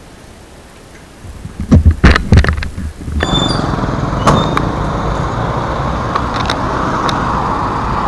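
Loud knocks and rustling as paper and cardboard packages are handled, then an abrupt switch to steady highway traffic noise with a few clicks.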